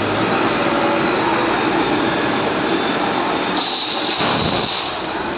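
Steady mechanical rumbling and clatter, with a loud hiss joining in from about three and a half to five seconds in.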